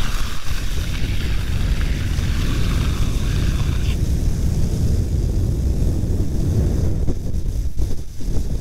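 Wind buffeting the microphone of a camera moving at speed down a wet road, a heavy steady rumble. A higher hiss lies over it for the first four seconds and cuts off suddenly.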